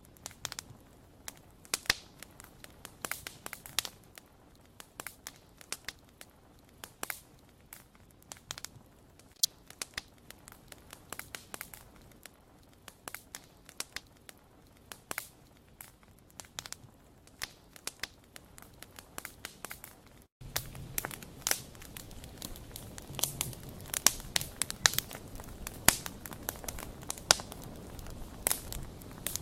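Wood fire crackling, with many irregular sharp pops and snaps over a low hiss. About 20 seconds in the sound drops out for an instant and comes back with a louder hiss and denser crackling.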